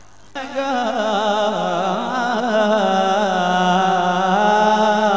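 A man singing a long drawn-out note of a devotional manqabat, without clear words, into a microphone. The pitch wavers and turns in ornaments. It comes in a moment after the start and is held to the end.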